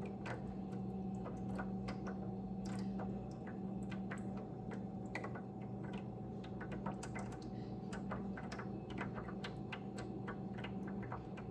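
Hot grease from browned ground beef draining off, dripping and crackling in scattered, irregular little clicks over a steady low hum.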